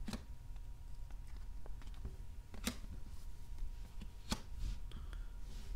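Chrome baseball trading cards being handled: faint rustling and sliding, with two sharp taps about a second and a half apart as cards are set down on a wooden tabletop.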